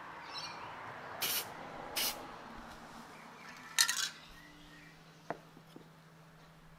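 Aerosol spray paint can hissing in three short bursts onto the water surface, laying a paint film for hydro dipping; the last burst is the longest and loudest. A light click follows a little later.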